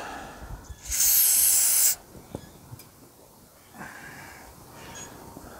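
Aerosol can of brake cleaner sprayed onto a rag: one loud hissing burst lasting about a second, starting about a second in.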